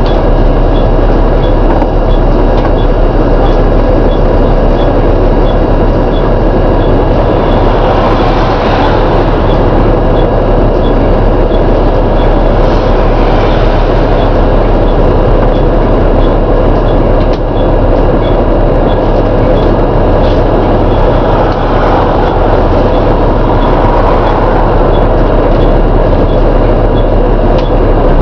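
Volvo B7TL double-decker bus running steadily with a bad groaning noise, over a faint regular ticking.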